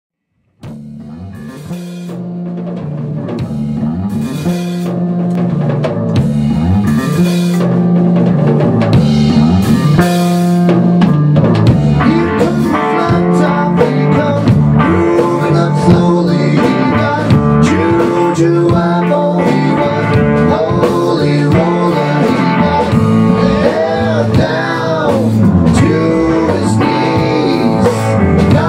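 A live rock band playing an instrumental blues-rock passage on a Tama drum kit, electric bass and electric guitar. The music comes in about half a second in and grows louder over the first several seconds before running on steadily.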